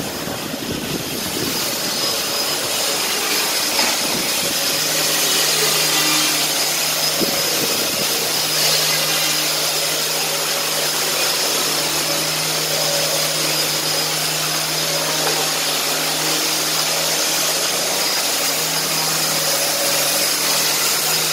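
Handheld electric sander running steadily on wooden floorboards: a constant motor hum under the hiss of sanding. It grows a little louder and steadier about four seconds in.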